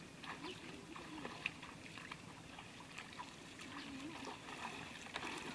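Light splashing and trickling of shallow muddy water as people wade and grope through it by hand, with many small sharp splashes.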